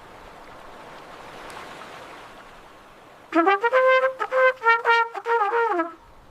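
An animal calling: a rapid run of short, clear-pitched notes stepping up and down, starting about three seconds in and lasting almost three seconds, after faint background noise.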